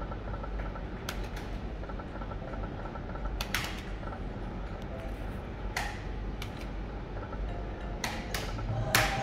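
Slot machine being played: sharp clicks every second or two as the reels are spun, over a steady low hum.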